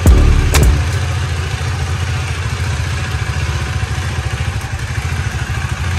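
A motorcycle engine idling steadily with a fast, even low pulsing, after two sharp clicks in the first second.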